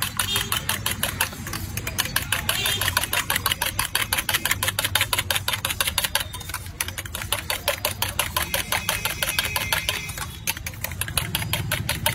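Eggs being beaten fast with a metal spoon in a stainless steel bowl: a quick, even clicking of spoon against steel, several strokes a second, pausing briefly twice.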